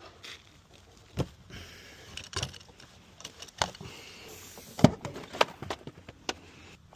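Scattered sharp clicks and knocks of a locksmith's tools working a locked car door open, about one a second, the loudest a little before the five-second mark.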